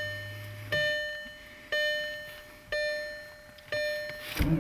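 Car dashboard warning chime dinging steadily about once a second, five times. Each ding is a clear bell-like tone that fades before the next.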